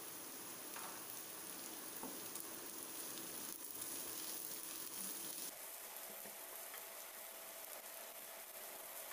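Shredded cabbage and chopped green beans sizzling as they stir-fry in oil in a nonstick frying pan, stirred with a spatula. The sizzle drops a little about five seconds in.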